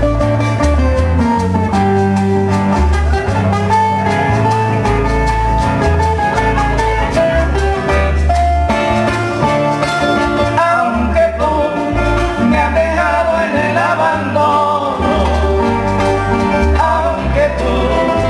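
Live Cuban bolero-son from a trio: acoustic guitars playing melody and chords over a pulsing bass line, with maracas shaken in rhythm.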